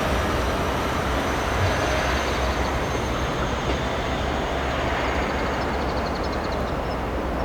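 Electric commuter train running along the line: a steady rumble and rush of wheels on rail. The highest hiss thins out a little after three seconds into the run.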